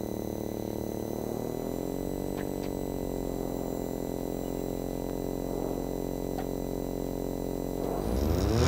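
Ford Fiesta Rally4's turbocharged 1.0-litre three-cylinder engine idling steadily, heard inside the cabin with the car stationary on the start line. About a second and a half in the revs rise and settle again, and near the end they climb sharply and grow louder as the car is held in first gear at a standstill for the launch.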